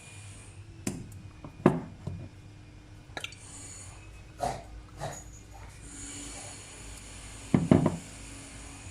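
Kitchen handling sounds: a few separate knocks and clinks of cookware and utensils being set down and moved, the loudest cluster near the end, over a low steady hum.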